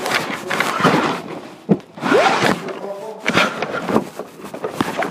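Rustling and knocking of things being handled close to the recorder, with a sharp knock a little under two seconds in.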